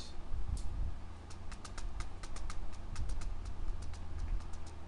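A quick, uneven run of computer keyboard key clicks, about five or six a second, over a steady low electrical hum.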